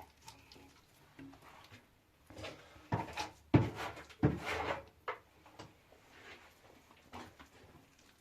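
Irregular knocks and scrapes of objects being handled, with a few louder thumps about three to four and a half seconds in.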